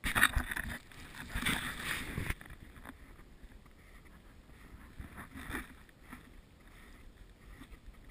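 Wind buffeting the microphone of a camera carried across a snowy field, loudest in the first two seconds, then dropping to a steady low rush with a few soft crunches of steps in snow.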